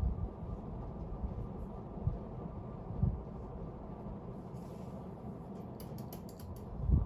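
Hunter R-52 ceiling fan running steadily: a low, even motor and air sound with irregular low rumbles. A brief run of light clicks about six seconds in.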